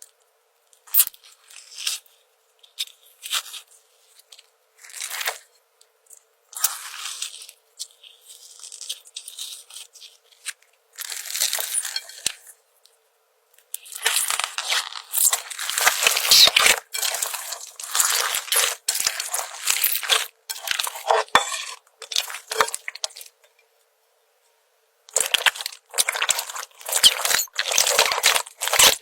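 Slime being squeezed, pressed and stretched by hand, giving irregular crackling, crinkling and crunching pops in bursts, with a couple of short silent breaks and a dense run of loud crackles in the middle.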